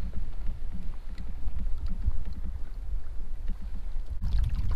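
Wind rumbling unevenly on the microphone of a pedal-drive kayak under way, with faint scattered ticks of water; the rumble grows stronger near the end.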